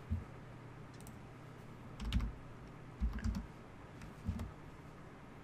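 Typing on a computer keyboard: a few short clusters of keystrokes and clicks, roughly a second apart, with dull thumps under the heavier strokes.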